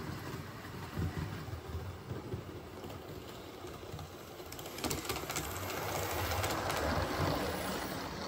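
Model InterCity HST train running on the layout's track: the motor hums and the wheels click over the rail joints. There are a few clicks about five seconds in, and it gets louder from there as the train comes past.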